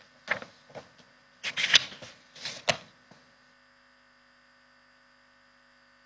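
A few brief, indistinct noises in the first three seconds, then a steady electrical hum with a faint buzz.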